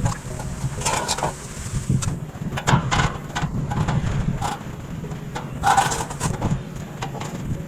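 Construction work: irregular knocks, clatters and scrapes, some in quick clusters, over a steady low hum.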